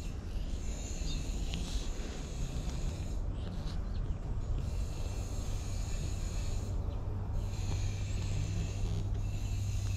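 Stray cat purring steadily as it is stroked on the head and chin, the low purr growing stronger a few seconds in.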